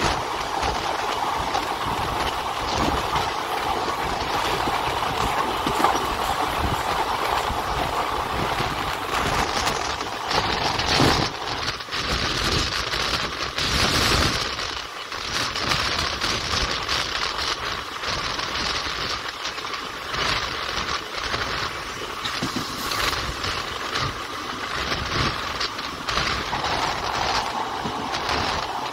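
Passenger train running, heard from on board a coach: steady rolling noise of steel wheels on the rails with frequent short clicks from the track, and a brighter, hissier stretch about halfway through.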